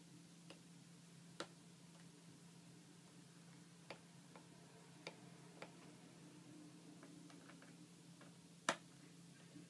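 Faint, scattered small clicks and taps from handling small computer hardware, over a steady low hum; one sharper click comes near the end.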